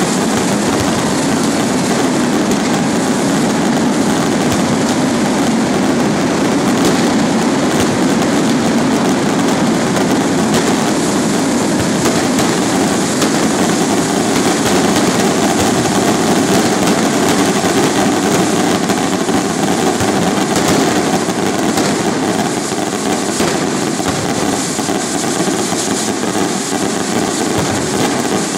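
Massed fireworks rockets being set off: a dense, steady rush of launching rockets and crackle, with no single bang standing out.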